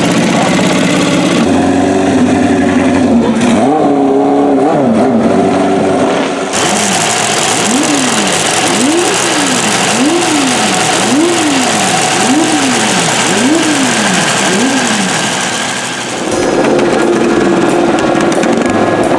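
Vintage motorcycle engines running in a few short cuts. In the middle one, an engine is revved up and back down about seven times in a row, roughly once a second.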